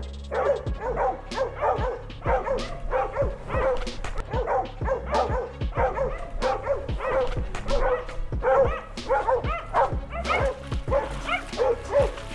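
Hog dogs barking over and over, about two to three barks a second without a break: the steady bay of dogs that have found a hog.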